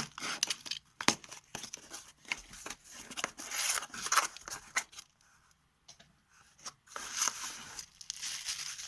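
Packaging being torn open by hand: bouts of tearing and rustling with a few sharp clicks, quieter for a moment around the middle.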